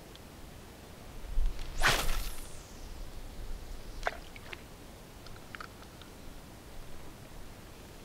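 Spinning rod cast: one quick whipping swish of the rod about two seconds in, with the line running off the reel, then a sharp click and a few faint ticks from the reel.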